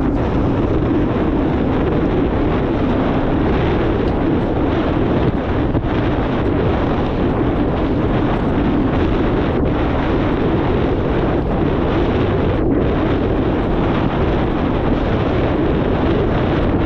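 Steady wind rushing and buffeting over the microphone while cycling at speed on a road bike.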